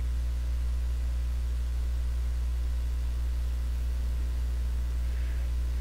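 Steady low electrical hum with a faint buzz of higher tones, mains hum picked up by the recording microphone.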